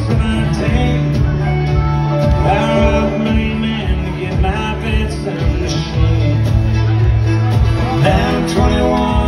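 Live band playing an instrumental break, a bowed fiddle carrying the sliding lead melody over strummed guitars and a steady drum beat.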